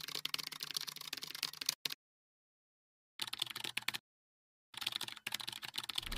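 Faint, dense, irregular clicking like keyboard typing, broken twice by stretches of dead silence, about two seconds in and again about four seconds in.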